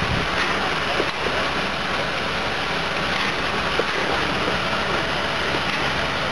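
German steam tank locomotive standing in steam, giving a steady hissing rush with no exhaust beat.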